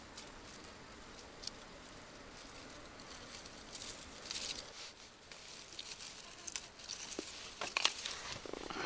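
Hands handling fishing gear: rustling, crinkling and small clicks, which grow busier and louder in the last second or so.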